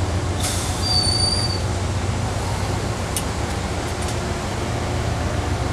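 Amtrak Northeast Regional passenger cars rolling past at speed: a steady rumble of wheels on rail. A brief high squeal comes about a second in, and a few sharp clicks sound along the way.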